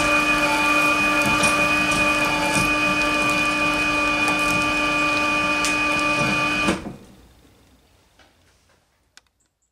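Twin-shaft shredder running with a steady motor and gearbox whine and scattered sharp cracks as its cutter discs chew through shredded children's shoes. It stops abruptly about seven seconds in, and the sound dies away to near silence.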